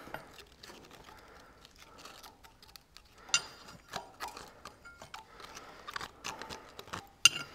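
Metal clinks, taps and scrapes as a spanner and a loose exhaust manifold gasket are worked off the manifold studs of an old tractor engine block, with a sharp clank about three seconds in and a louder one near the end.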